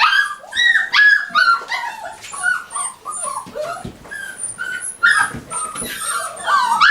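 Six-and-a-half-week-old pinscher puppies whimpering and yipping: a run of short, high-pitched cries one after another, rising to a louder cluster about five seconds in.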